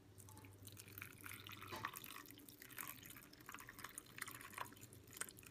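A thin fish-sauce mixture poured from a pot onto mashed tuna in a glass bowl: faint, irregular splashing and dripping as the liquid lands.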